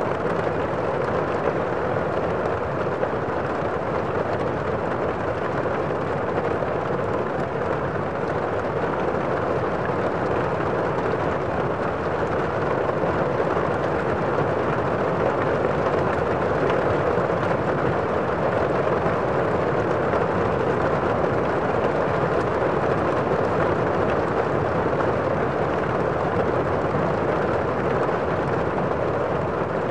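Steady rushing noise, even and unbroken throughout, with no distinct events.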